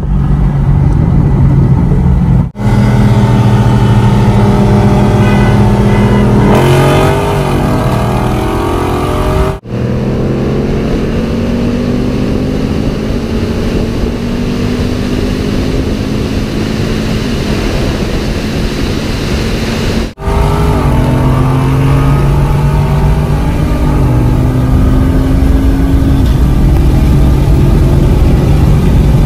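V8 muscle cars accelerating at full throttle in a roll race, their engine notes climbing in pitch as they pull. The 2017 Camaro SS's 6.2-litre V8 is heard from inside its cabin. In a middle stretch it is heard from outside, alongside the 2020 Charger Scat Pack's 6.4-litre HEMI V8, with wind noise. The sound drops out briefly three times.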